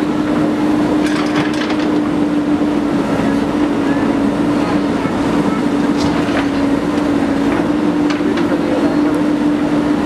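JCB 3DX backhoe loader's diesel engine running at a steady pitch while the backhoe arm swings and works the bucket, with a few short knocks from the digging gear.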